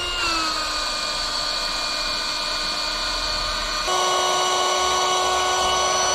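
Small rechargeable electric air pump running steadily, inflating an inflatable kayak's air chamber through its valve. Its whine drops slightly in pitch just after the start, then changes to a different steady pitch about four seconds in.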